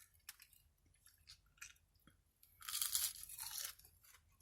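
A person biting into and chewing crunchy fried food close to the microphone, with a few faint crunches early on and a louder crackly crunching burst a little past halfway that lasts about a second.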